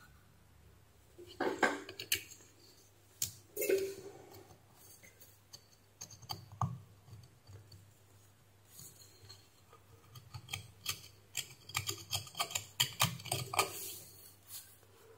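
Small metallic clicks and scrapes of a hand tool working at a steam iron's rust-corroded heating-element terminal and wire lug. A few separate knocks come first, then a quick run of clicks in the last few seconds.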